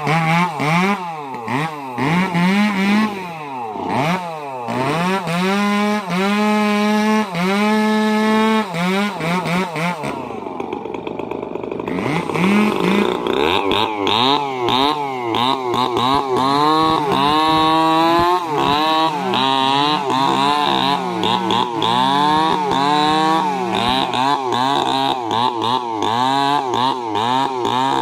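Stihl two-stroke chainsaw running at high revs, its pitch rising and falling again and again as the throttle is worked while ripping a log lengthwise; the engine drops lower for a couple of seconds around ten seconds in, then runs high and wavering to the end.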